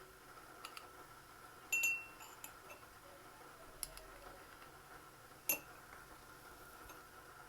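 Spoon clinking against a dish as honey is spooned in: a few light clicks, with two sharper clinks that ring briefly, about two seconds in and again about five and a half seconds in.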